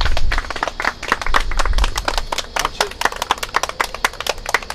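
A small group of people clapping their hands: many quick, irregular claps.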